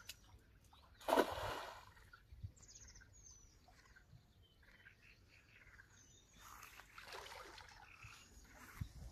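A cast net hitting the water with a splash about a second in, then softer sloshing as it is hauled back in. Small birds chirp briefly now and then.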